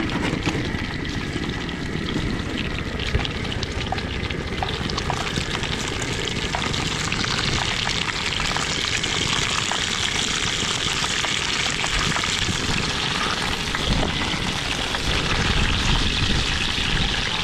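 Lamb chops sizzling and crackling steadily on a hot grill tray.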